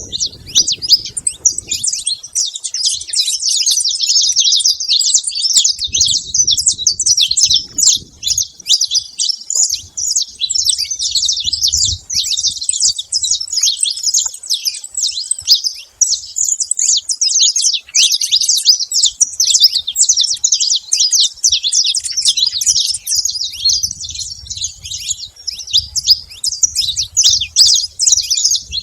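Saffron finch singing loudly: a dense, unbroken run of rapid high chirps and trills.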